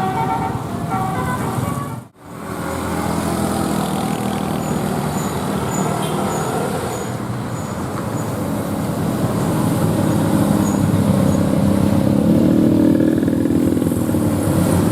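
Bus telolet musical horn playing a quick run of notes, broken off by a cut about two seconds in. Then a passing bus's engine running, growing louder toward the end.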